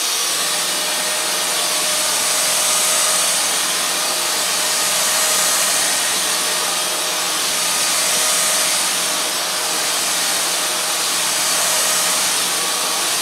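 Dyson DC35 Digital Slim cordless stick vacuum running in regular (not max) mode: a steady, loud rushing whine with a faint hum under it. Its motorised brush head is being pushed over carpet, and the level swells gently a few times.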